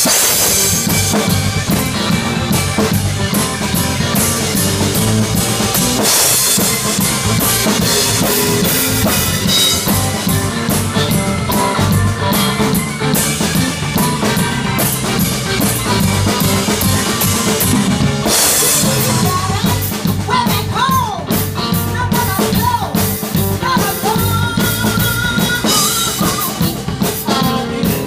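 Drum kit played live: a steady beat on bass drum, snare and cymbals, with cymbal crashes about six seconds in and again near eighteen seconds, over held notes from other instruments.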